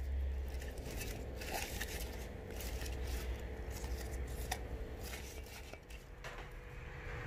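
Handling noise: rustling and scattered small clicks as arrowhead vine cuttings are moved about by hand in glass bowls of water, over a low rumble and a faint steady hum.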